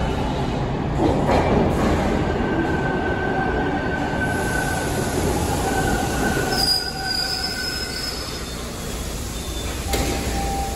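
Toronto subway train (TTC T1 car) pulling into an underground station and braking to a stop. The wheels and motors rumble, and high squeals from the wheels and brakes come in about two seconds in. Both ease off as the train halts, and a short click follows near the end.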